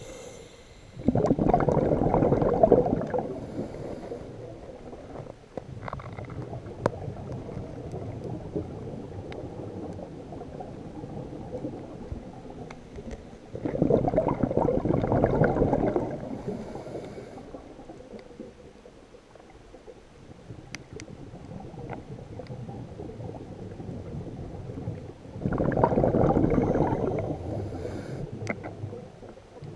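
A scuba diver breathing underwater: three bursts of exhaled bubbles gurgling past the camera about twelve seconds apart, with a quieter steady hiss between breaths.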